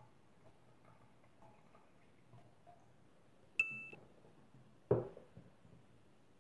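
A short, bright chime-like ding about three and a half seconds in, added as an effect when the "Milk!" caption pops up, followed just over a second later by a dull thump.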